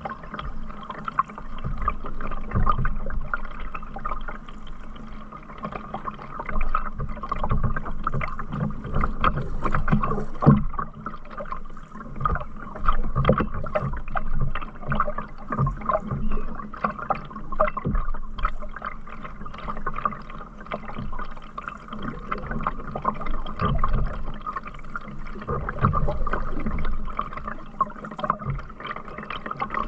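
Canoe being paddled: irregular paddle strokes with water splashing and gurgling against the hull, and low knocks now and then.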